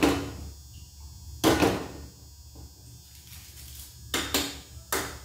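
A few short knocks and clatters from kitchen items being handled and set down, two of them close together near the end, over a low steady hum.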